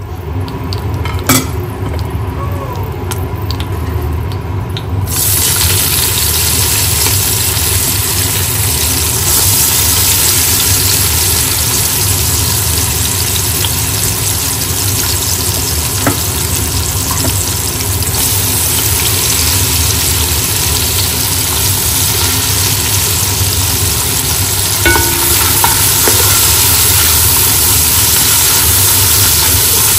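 Chopped onions sizzling in hot oil in a large pot, the hiss starting suddenly about five seconds in as they go in, with a spoon stirring them. This is the start of the sauté. A steady low hum runs underneath.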